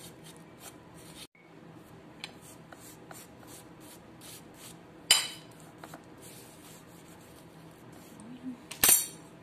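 Table knife spreading butter over a pancake on a ceramic plate: a run of short scrapes, with two louder sharp sounds of the knife against the plate, about five seconds in and near the end.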